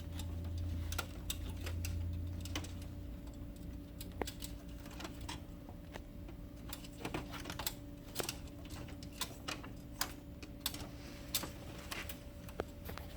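Irregular light plastic clicks and taps as a laser printer's transfer roller is handled and seated back into its spring-loaded holder, over a faint steady hum. A low rumble sounds for the first few seconds.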